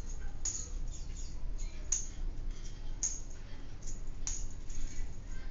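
Steel bicycle spokes being pulled out of a hub's flange holes as the wheel is unlaced, clicking and scraping against the hub and against each other. The sharpest clicks come about once a second.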